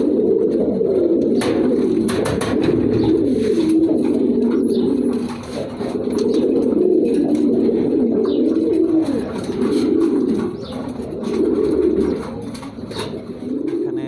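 Domestic pigeons cooing continuously, several at once in overlapping low coos, with a few sharp clicks about one to four seconds in.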